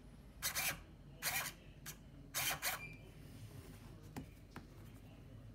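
Steering servo of a 3D-printed RC Land Rover scale model turning the front wheels under app control. It makes four short whirring bursts within about three seconds, then goes quiet apart from a couple of faint clicks.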